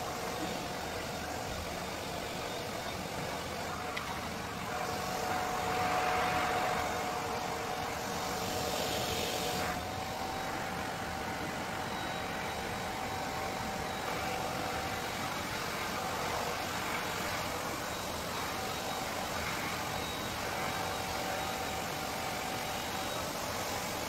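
Handheld hair dryer running steadily: a motor whirr with a faint steady whine and rushing air, louder for a few seconds about a quarter of the way in as the air is aimed at the hair.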